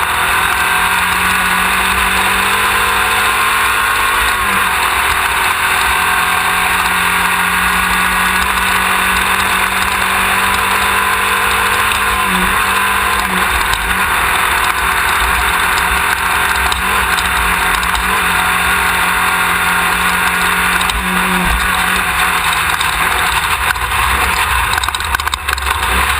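Off-road race car's engine running hard at speed, its pitch slowly drifting and shifting a few times with the throttle, over a steady rush of wind and driving noise.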